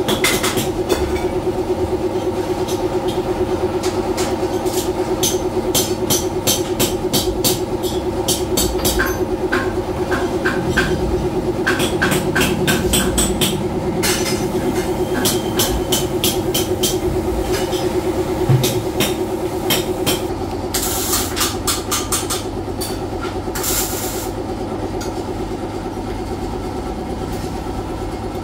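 A workshop machine running steadily: a loud hum with a fast chugging pulse, overlaid by many sharp clicks and taps that come in quick runs. The drone drops in level about twenty seconds in.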